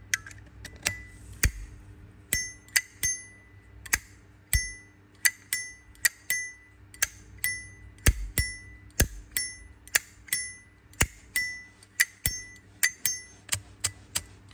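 Zippo lighter's metal lid being flicked open and snapped shut over and over, about two clicks a second, each with a bright metallic ring. The lid sound is one the seller rates as good.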